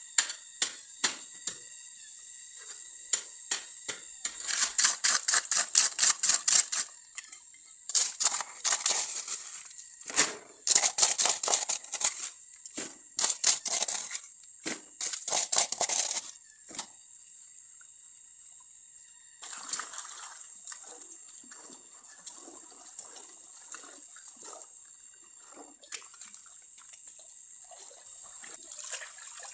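Water splashing and sloshing in several runs of rapid splashes, then scattered drips and trickling, with a steady high whine behind it.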